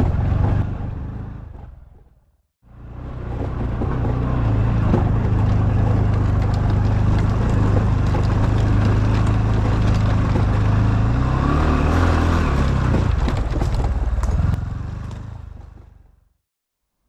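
Honda Super Cub's small single-cylinder engine running steadily under way, with wind and road noise. The sound fades out and back in about two and a half seconds in, the engine note shifts up and down around twelve seconds, and it fades out near the end.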